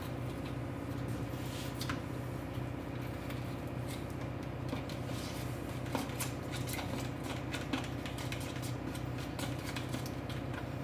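Steady low appliance hum with scattered light clicks and taps of kitchen items being handled; the sharpest taps come about six and eight seconds in.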